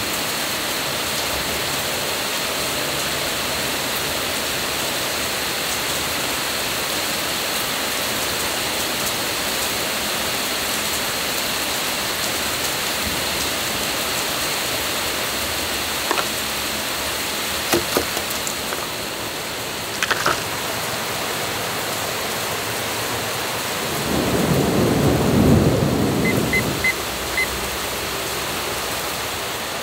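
Steady rain hissing down, with a few faint clicks from handling. Near the end a low rumble swells and fades, and a digital kitchen timer gives four short beeps as its buttons are pressed to start a five-minute countdown.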